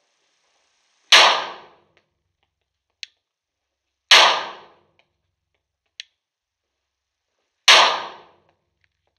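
Three shots from a Glock 21 pistol in .45 ACP, about three seconds apart, each followed by a short echo off the indoor range. A faint click comes between the shots, twice.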